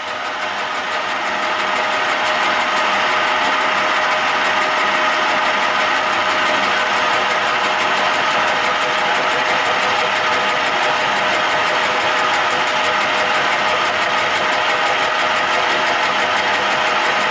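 Milling machine spindle running a flycutter counterclockwise at about 355 rpm, the carbide tool skimming a cut across a steel plate. The steady machine sound grows louder over the first couple of seconds, then holds even.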